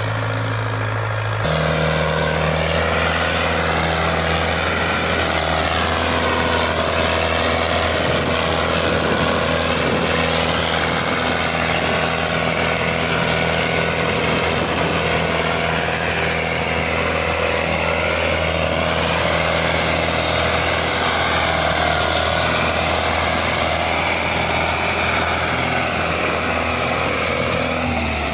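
Hindustan tractor's diesel engine running steadily under heavy load as it pulls a trailer piled high with sugarcane. Its tone shifts abruptly about a second and a half in, then holds steady.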